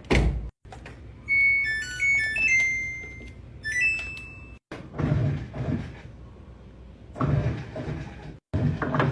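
Samsung automatic washing machine: a thud as the lid shuts, then the control panel's short tune of electronic beeps as the cycle starts. After that come several separate bursts of rushing noise from the machine.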